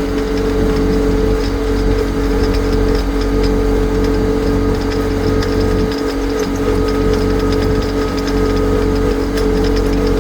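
Diesel engine of a Yanmar compact tractor running at a steady speed, a constant drone with a fixed pitch.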